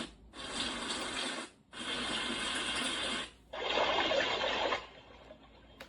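A sunrise alarm clock's small built-in speaker plays recorded rushing-water sounds as its tracks are switched through. Each clip lasts a little over a second and is cut off by a short gap. The fourth clip is a duller rush, and it stops about five seconds in, leaving only a faint hiss.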